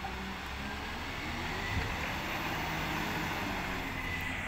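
Side-loader recycling truck's engine running under load as the truck pulls away, its pitch rising over the first couple of seconds, with a single sharp thump just under two seconds in.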